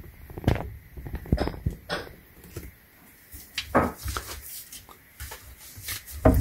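A metal drawer slide rail knocking and clattering as it is handled and set in place inside a cabinet, with a few separate knocks spread irregularly over several seconds.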